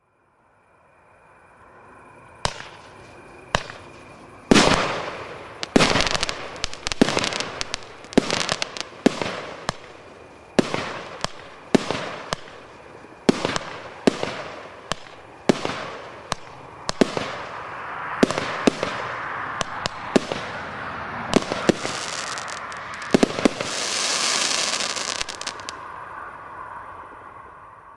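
A 19-shot firework cake of 30 mm mixed shells firing. It gives a run of sharp bangs about a second apart, with crackle filling in between them and a loud hissing swell near the end before it dies away.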